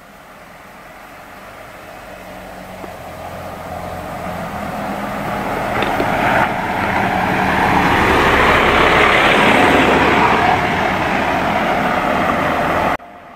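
A Hyundai Porter II small diesel truck drives up a narrow lane, its engine and tyres growing steadily louder as it comes close, then cut off abruptly near the end.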